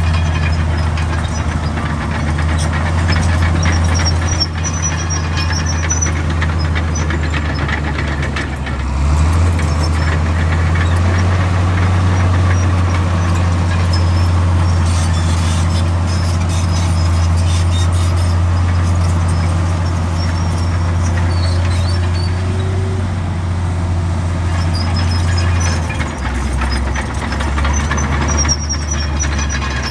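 Heavy diesel earthmoving machinery running steadily under work. The low engine note shifts about nine seconds in and again near the end, with short high squeaks now and then.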